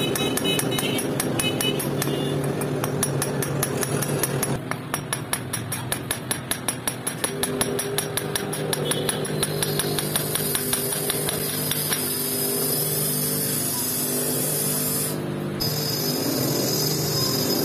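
Rapid, evenly spaced light hammer taps on an aluminium motorcycle cylinder head, several a second, knocking out a valve seat that has been loosened by welding; the tapping stops about twelve seconds in. Background music plays throughout.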